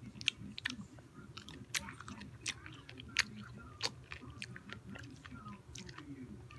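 Close-up chewing of a crunchy spicy pickle: crisp bites and crunches with mouth clicks, irregular, several a second.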